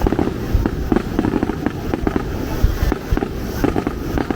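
Fireworks display: rapid dense crackling with a few deeper booms in the middle.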